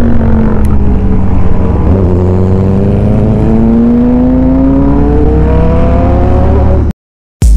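Royal Enfield Interceptor 650's parallel-twin engine under way, over a low wind rumble. The engine note eases down over the first two seconds, then climbs steadily as the bike accelerates, and the sound cuts off abruptly near the end.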